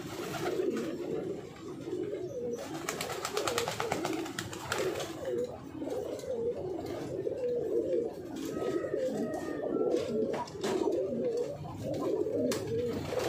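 Domestic pigeons cooing steadily, a continuous warbling chorus. A rapid run of flutters, like wings flapping, comes from about two to five seconds in.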